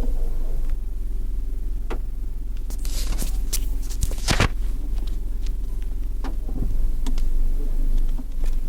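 Car running with a steady low hum and scattered sharp clicks and knocks, most of them bunched about three to four and a half seconds in: the abnormal transmission noise under investigation.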